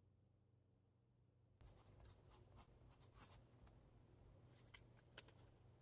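Fine steel nib of a Platinum Preppy fountain pen scratching softly across smooth paper in quick short handwriting strokes, starting about one and a half seconds in, with a couple of sharper ticks near the end.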